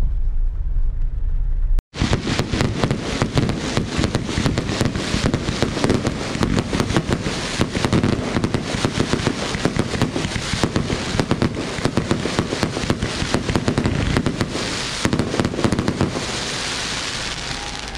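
Aerial fireworks barrage: a dense, unbroken run of rapid bangs and crackles, easing into a steadier crackle near the end. It follows a low car-cabin road rumble that stops about two seconds in.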